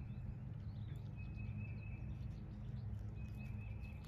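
Outdoor woodland ambience: a steady low hum under faint bird chirps, with a thin, high, steady note held for about a second, twice.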